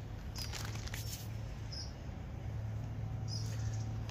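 Short high chirps from a small bird, repeating about every second and a half, over crackling and rustling from handling a pigeon carcass while it is being dressed.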